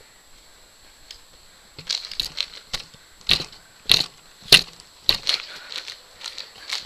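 Mini trampoline being bounced on: a sharp knock from the mat and springs each time the jumper lands. The knocks come in a rhythm of about one every half second, starting a couple of seconds in and loudest in the middle.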